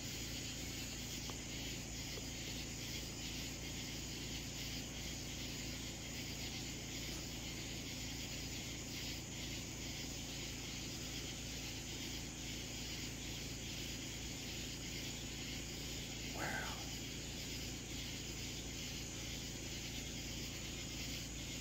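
Steady outdoor night ambience: an even hiss with faint insect chirring, and one brief rising sound about sixteen seconds in.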